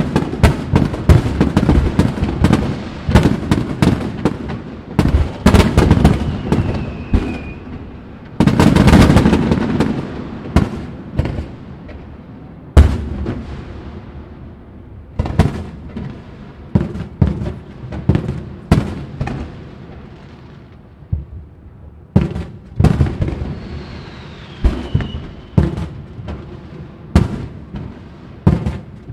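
Fireworks finale: a rapid barrage of bursting aerial shells, many sharp bangs and booms with echoing rumble. It is heaviest in a dense cluster about nine seconds in, thins out in the middle, and builds again near the end.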